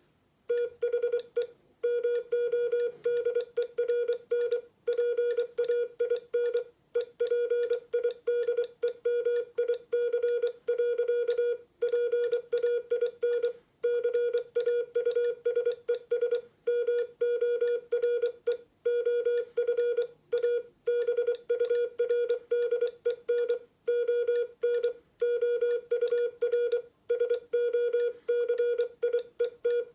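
Morse code sidetone: a steady beep near 500 Hz keyed on and off in dots and dashes as plain-language text is sent on a Morse paddle driving an electronic keyer, with short breaks between words.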